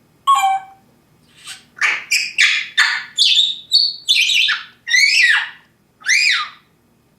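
Pet parrot giving a rapid series of short squawks and whistled calls, about a dozen in all, each bending up and down in pitch. There is one call first, then a quick run of them after a short pause, and a last call near the end.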